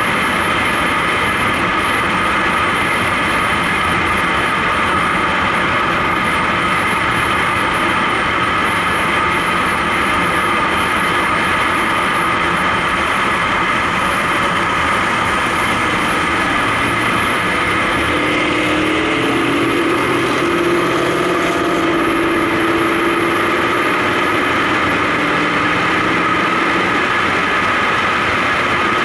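Car running at highway speed heard from a camera mounted on the outside of the body: a steady rush of wind and road noise with engine drone beneath it. About two-thirds of the way in, a lower droning note rises and then holds.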